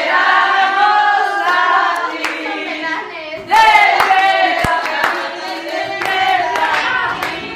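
A group of voices singing together, with a few sharp claps among them; the singing gets louder about three and a half seconds in.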